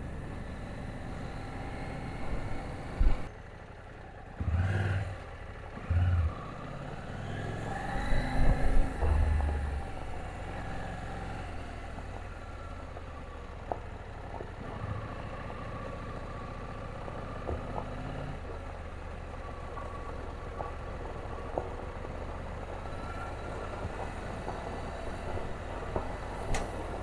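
KTM 790 Adventure's parallel-twin engine running under way, its pitch rising and falling as the throttle is worked. A few heavy low thumps stand out between about two and ten seconds in, and small clicks and knocks follow.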